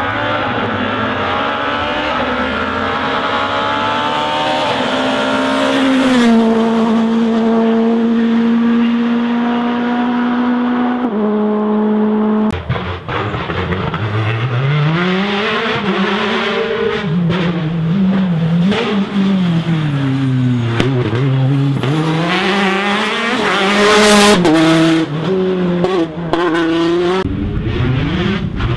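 Rally car engine driven hard on a stage, its note held high for several seconds, then climbing and dropping repeatedly with gear changes, lifts and braking.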